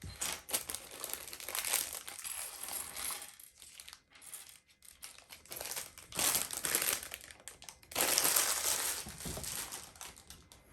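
Plastic bags of LEGO pieces crinkling as they are handled, in several bursts with short pauses between.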